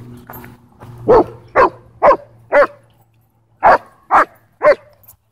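Dog barking during rough play with other dogs: seven sharp barks about half a second apart, in a run of four and then a run of three.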